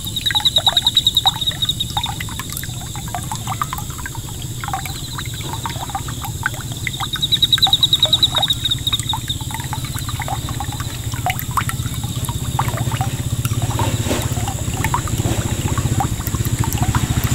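Small solar fountain pump's water jet splashing back onto the pond surface, a steady patter of falling drops. A high pulsing trill comes in twice, near the start and again from about five to nine seconds in, and a low hum underneath grows louder near the end.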